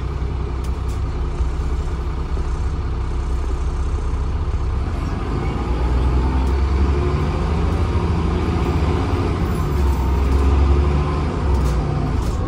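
Transbus ALX400 Trident double-decker bus in motion, heard from inside: a steady low engine and road rumble that swells twice, with a few light rattles from the body.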